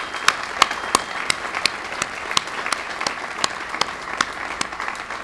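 Audience applauding, with loud, evenly spaced single claps, about three a second, from someone clapping right at the microphone; the applause tapers off near the end.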